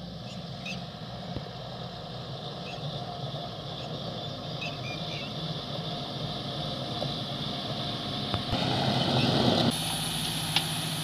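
Diesel engines running steadily, growing louder as a Tata tipper truck approaches along a gravel road. Near the end there is a short burst of rushing noise, then the engine sound changes abruptly.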